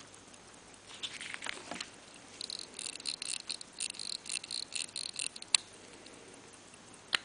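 Crown of a pre-1920 Rolex pocket-watch movement being turned: a run of quick metallic ratchet clicks, about five a second, for some three seconds, after brief handling rustle. Two sharp single clicks follow, the second near the end.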